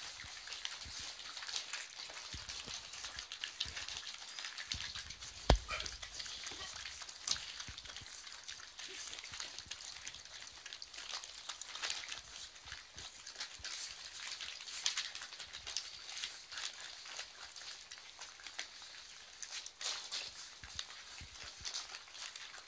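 Several puppies crunching and chewing dry kibble: a dense crackle of small clicks, with one sharp knock about five and a half seconds in.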